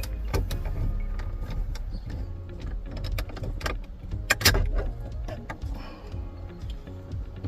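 Plastic door handle bowl trim being pried out of a car's interior door panel with a pry tool: irregular clicks and scraping, with a louder crack about four and a half seconds in, the trim held in by three pins that take some force to release.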